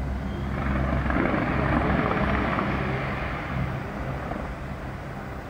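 Fireworks crackling in a dense, continuous wash over a low rumble, swelling in the first seconds and then fading as the display thins out.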